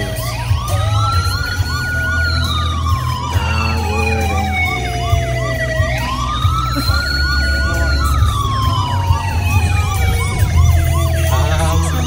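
Emergency-vehicle wail siren. Each cycle climbs quickly, holds high briefly, then slides slowly down, repeating about every six seconds, with a faster pulsing tone layered underneath. A low rumble of engine and road noise from inside a moving car runs beneath it.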